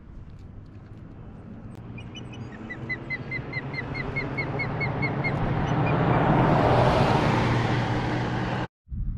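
Osprey calling a quick run of about a dozen short whistled chirps, about four a second, while a vehicle on the road gets louder as it approaches and passes, loudest near the end. The sound cuts off abruptly just before the end.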